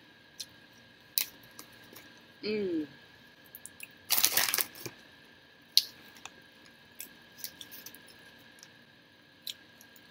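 Close-up eating sounds: mouth clicks and lip smacks while chewing, a short hummed "mm" about two and a half seconds in, and a loud noisy rush lasting about half a second near the middle. A faint steady whine from a window air conditioner runs underneath.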